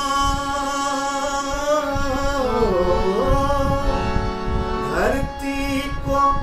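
A man singing a Hindi devotional song (bhajan) over a harmonium, holding a long drawn-out note. About halfway through his voice dips down in pitch, and near the end it slides back up, while the harmonium sustains its notes underneath.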